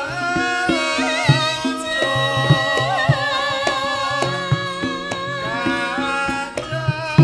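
Female Javanese sinden singing into a microphone in a long, wavering line with vibrato, over live traditional accompaniment with steady drum strokes.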